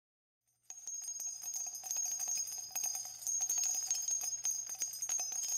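Small bells jingling continuously, a steady high shimmer of many tiny strikes, starting after a brief silence about a second in.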